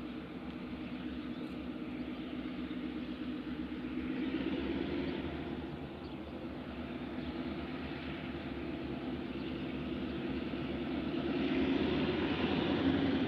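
Distant diesel locomotives working a freight train, heard as a low, steady engine drone that swells a little about four seconds in and grows louder near the end as the train approaches.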